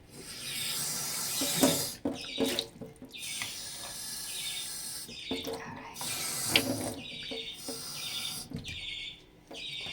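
Kitchen tap running, water pouring into a container, in three long stretches with brief pauses between them.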